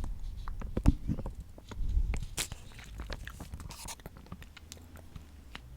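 Close-miked biting and chewing of a crunchy snack: a run of crisp crackles and clicks, with the sharpest one a little before one second in.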